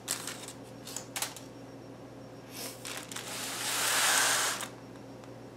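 Aluminium foil under a cake crackling as a knife cuts the cake and the cut pieces are shifted on it. A few short crackles come in the first second or so, then a longer crinkling rustle from about three to four and a half seconds in.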